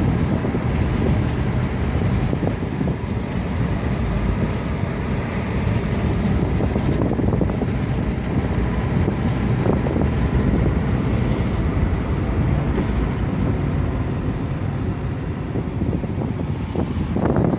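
Car driving steadily, with road and engine noise and wind buffeting the microphone.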